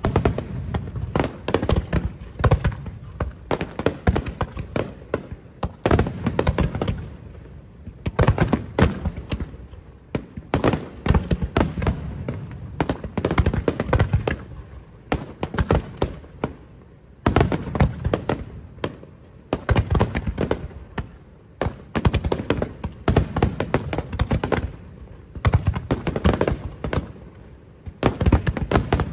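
Fireworks display's aerial shells bursting in rapid volleys of sharp bangs, many overlapping, with brief lulls between barrages every few seconds.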